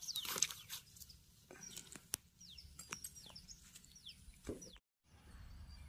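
Small birds chirping faintly: repeated short, falling chirps. A plastic bag rustles briefly at the start.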